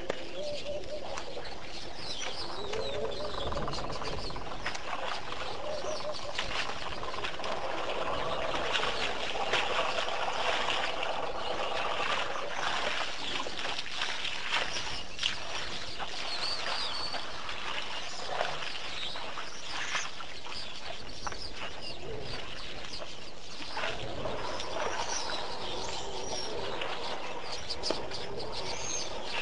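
Many birds calling and chirping at once, with some lower, longer calls in between and scattered short clicks and knocks throughout.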